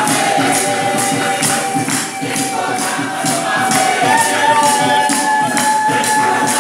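Music: a sung melody with held notes over a steady shaken percussion beat, about two strokes a second.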